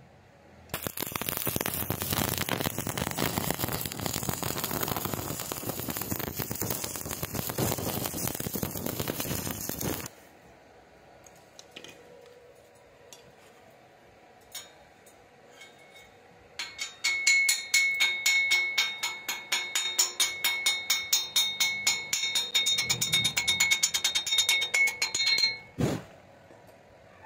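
Stick (arc) welding on steel: the arc crackles and hisses steadily for about nine seconds. After a pause there is rapid metal-on-metal tapping with a ringing tone, about three to four strikes a second for some nine seconds, as the slag is chipped off the fresh weld bead.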